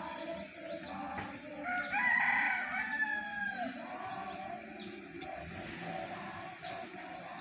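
A rooster crows once, loudly, about two seconds in, its call bending down at the end. Faint sustained singing voices and a few short, high bird chirps sound underneath.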